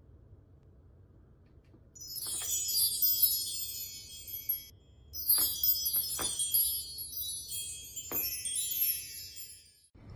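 High, tinkling chime-like sounds in two stretches of a few seconds each, with a short gap between them and a few sharp clicks, over a faint low hum.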